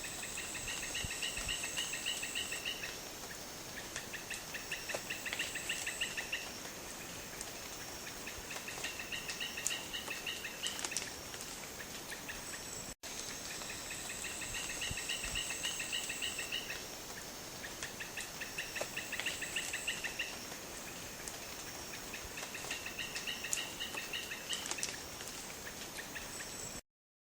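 Asian red-eyed bulbul singing: short, rapid bubbling phrases repeated every four seconds or so. The same run of phrases plays twice, with a brief break halfway through.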